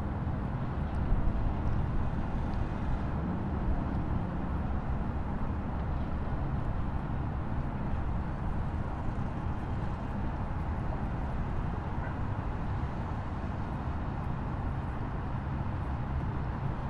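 Waterfall: a steady, even rush of falling water, heaviest in the low end.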